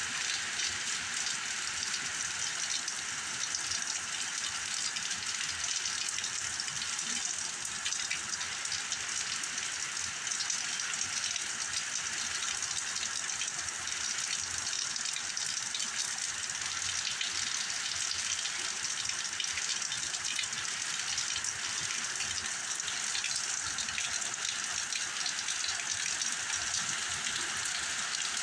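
Heavy rain pouring down steadily in a storm, an even hiss of countless drops.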